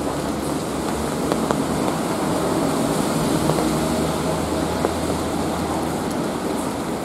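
Steady city rain, a continuous hiss with scattered sharp drip ticks. Under it runs the low hum of traffic, swelling in the middle as a vehicle passes.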